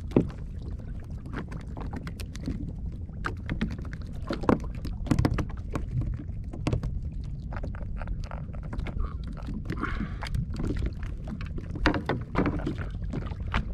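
Water lapping and slapping against a sit-on-top kayak hull, with frequent small knocks and taps on the hull, over a steady low wind-and-water rumble.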